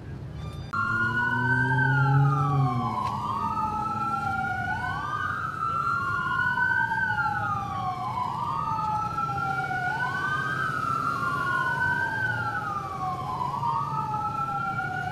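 Police sirens wailing: two sirens sliding slowly up and down in pitch, out of step with each other, starting suddenly about a second in. A deep drone sounds under them for the first two seconds.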